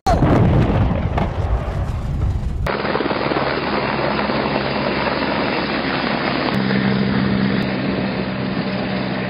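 A helicopter crashing into the ground: a loud rumble of impact. After a sudden cut, a light helicopter flying low with a steady drone of rotor and engine.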